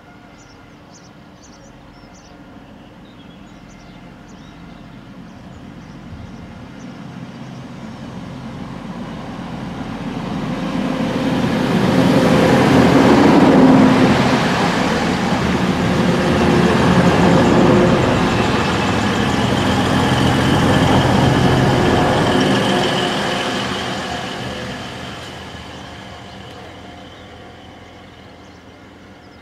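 Class 185 Siemens Desiro diesel multiple unit approaching and passing close by. Its underfloor Cummins diesel engines and its wheels on the rails grow steadily louder from about six seconds in, hold loudest through the middle as the cars go past, then fade as it runs away.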